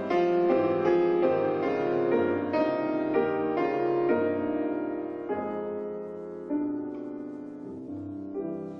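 Solo piano music played on an 1864 Julius Blüthner grand: a flowing passage of chords that grows quieter and sparser after about halfway, with notes left ringing near the end.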